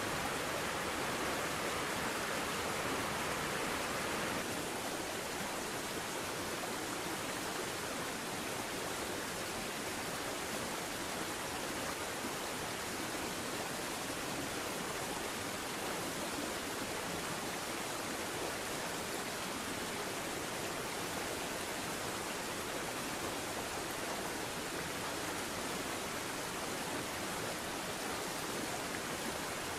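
Steady rushing of flowing creek water, slightly quieter after about four seconds in.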